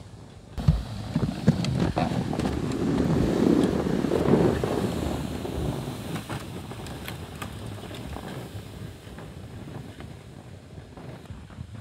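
Wind buffeting the microphone: a rumbling gust that starts suddenly about half a second in, swells for a few seconds, then eases, with scattered sharp clicks and knocks through it.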